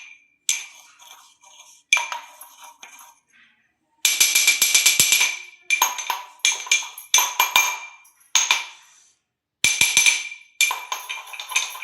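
A spoon tapping and clinking against a metal bowl in quick bursts of strikes with short pauses, the bowl ringing after each, as ground spice powder is tapped out into it.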